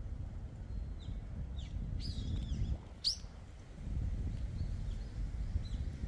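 Small birds giving a handful of short, high chirps, the sharpest one about three seconds in, over a steady low rumble.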